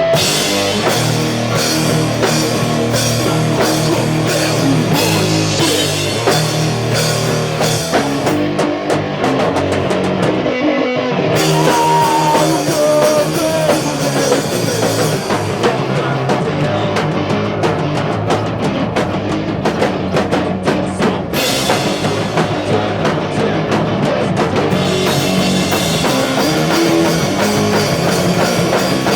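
Live rock band playing loudly: drum kit and guitar, with the cymbals dropping out for a few seconds about a third of the way in.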